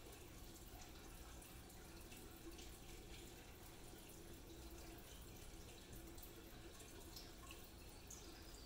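Near silence: faint room tone with a low steady hum and scattered faint ticks.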